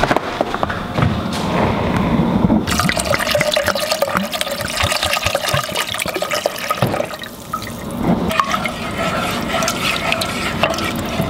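Marsala wine poured from a glass bottle into a stainless steel saucepan of broth, a steady splashing pour with glugs from the bottle neck starting a few seconds in. After a short pause near the end, a wooden spoon stirs and scrapes the liquid in the pan.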